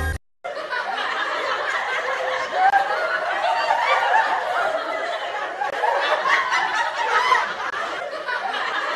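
A group of people laughing together, many voices overlapping without a break, starting just after a sudden cut.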